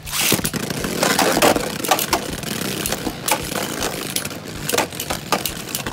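Two Beyblade spinning tops launched into a plastic stadium, landing with a sudden clatter, then spinning and rattling across the bowl floor with repeated sharp clacks as they collide.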